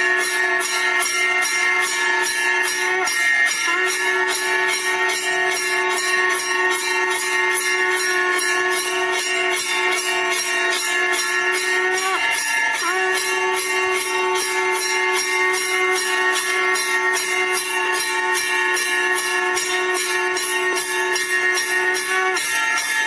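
Temple bell rung in a fast, even rhythm of about three strikes a second, over a shankh (conch shell) blown in long steady notes. Each note is held for about nine seconds, with short breaks for breath about three seconds in, about twelve seconds in and near the end.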